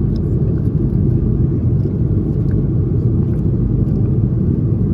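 Airliner cabin noise: a steady, loud low rumble of the jet engines and airflow heard from a passenger seat.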